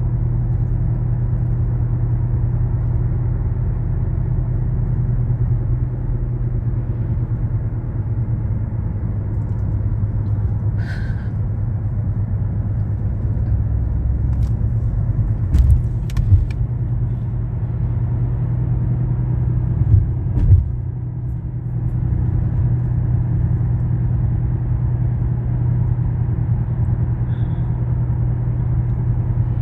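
Steady low drone of a car's tyres and engine heard from inside the cabin while driving, with two pairs of short thumps around the middle.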